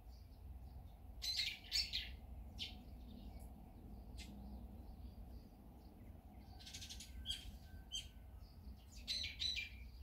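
Wild birds giving short, scratchy calls and chirps in three clusters: about a second in, around seven seconds in, and near the end. A low steady rumble runs underneath.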